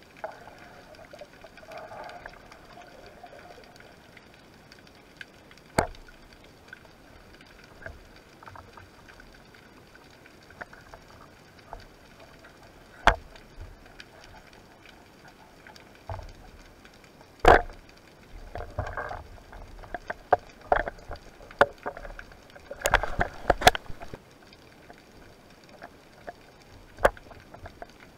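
Underwater recording through a speargun-mounted camera's housing: a faint steady hiss broken by sharp single clicks and knocks from the gun and diving gear being handled, with a burst of rattling knocks between about 18 and 24 seconds in.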